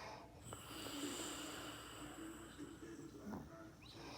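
Faint snoring: a slow, drawn-out sleeping breath with a low buzzing tone.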